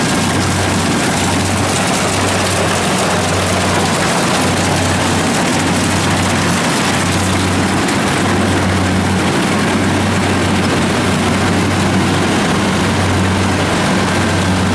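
Kubota DC-70 combine harvesters' diesel engines running steadily under load while cutting rice: a constant low engine hum under a dense mechanical rush from the machine.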